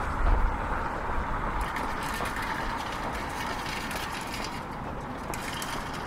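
Outdoor town street ambience: a steady background hum, with a low rumble that fades out in the first couple of seconds and a few faint clicks after that.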